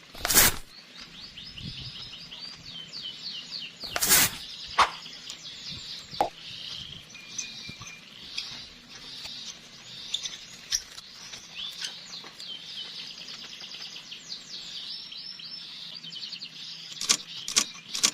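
Small birds chirping continuously in quick, high twittering calls, with a few sharp knocks or clicks: one at the start, a louder one about four seconds in, and several near the end.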